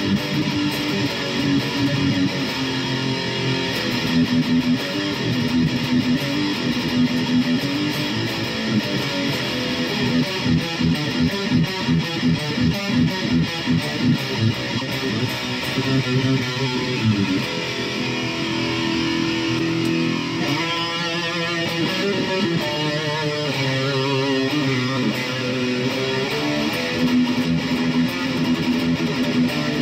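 Electric guitar played through a Boss Katana 100 MkII amp on a metal setting: held chords and notes, with a stretch of evenly pulsed chugging riffs about two a second in the middle and a wavering, bent note a little later.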